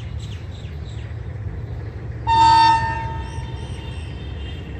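A single short toot of a WDG-3A diesel locomotive's air horn about halfway through, over a low background rumble.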